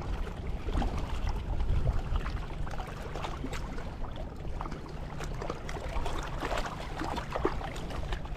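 Wind buffeting the microphone in a steady, uneven low rumble, with small waves lapping at the water's edge.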